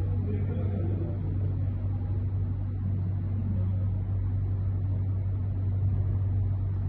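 A steady low hum with a faint rushing noise over it, even in level throughout.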